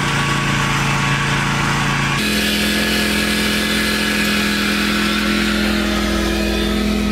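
Riding lawn mower's small engine running steadily as it drives across a lawn. Its note jumps abruptly to a higher steady pitch about two seconds in.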